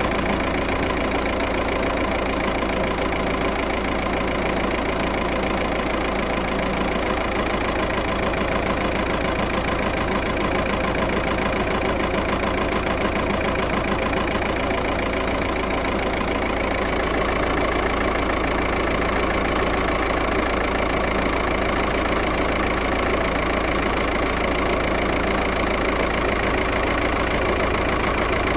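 Volkswagen Passat engine idling steadily, with a cylinder 1 misfire logged (fault code P0301 / 000769). It gets slightly louder about two-thirds of the way through.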